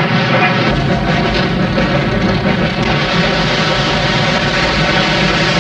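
Steam locomotive working past: a steady, dense roar of exhaust and running gear, with a deeper rumble joining under a second in.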